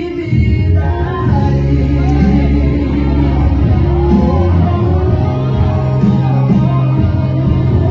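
Loud gospel music with a singing voice over instruments and a heavy bass line.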